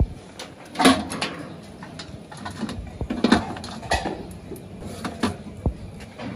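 Long-handled steel ladle clinking and scraping against a large steel cooking pot and a steel serving plate as curry and trotters are ladled out, with a few sharp knocks.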